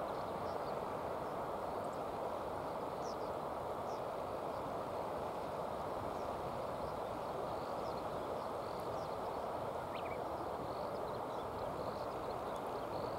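Steady outdoor background noise, with faint, short, high bird chirps scattered throughout.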